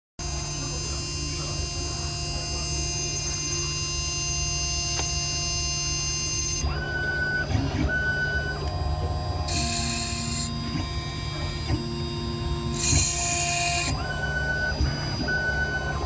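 Small CNC IC grinding machine grinding the memory chip off an iPhone 6S logic board: a steady motor hum with several whining tones. From about seven seconds in, short tones switch on and off, with two hissing bursts of about a second each around ten and thirteen seconds in.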